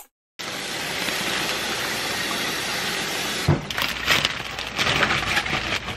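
A steady, even rushing noise for about three seconds, then crinkling and crackling of a plastic bag of mixed leafy vegetables being handled and tipped out over a stainless-steel sink.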